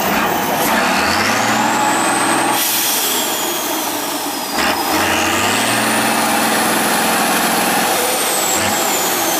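Tatra 815 6x6 truck's diesel engine revving hard twice as the truck churns in deep mud. Each time a high whine climbs with the revs and then sinks away.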